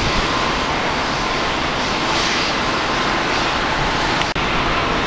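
Steady roar of jet airliner engines with a faint steady whine over it. There is a brief dropout about four seconds in.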